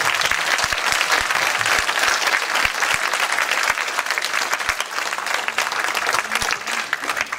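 Audience applauding: dense, steady clapping from many hands.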